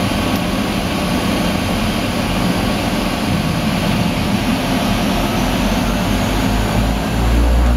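De Havilland Canada DHC-6 Twin Otter's twin turboprop engines and propellers droning steadily, heard inside the cabin. About seven seconds in the low drone grows louder and starts to throb as power comes up for the takeoff run.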